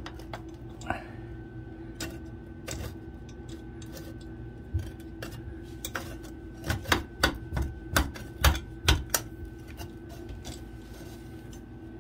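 Clicks and light knocks of a trim plate being handled and pushed into place on the end of a pipe, with a quick run of sharper knocks a little past the middle, over a steady low hum.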